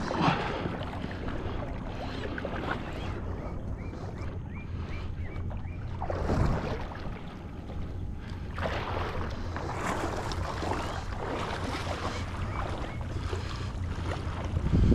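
Water sloshing and splashing around a small inflatable boat, with wind buffeting the microphone over a low steady rumble. There are louder surges at the start, about six and a half seconds in, and at the end.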